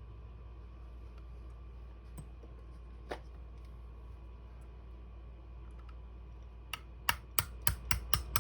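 Metal tools tapping and clicking on the parts of a Western Auto Revelation 400-C shotgun being taken apart, over a steady low hum. A couple of faint clicks come first, then near the end a quick run of sharp taps, about three a second.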